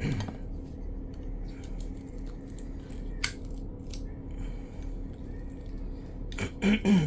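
Small metal clicks and handling of Kwikset lock parts as the cylinder is pushed back into the lock body, with one sharp click about three seconds in, over a steady low hum. A brief voice sound comes near the end.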